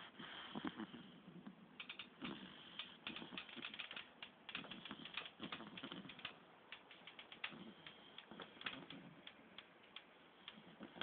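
Bully-breed puppy snoring in its sleep: faint, rattly snores made of quick, irregular clicks, coming in short bursts.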